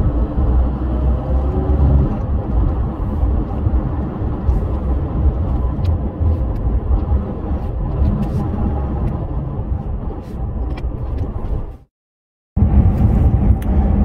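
Lorry engine and road noise while driving, a steady low rumble. It cuts out briefly near the end at an edit, then carries on.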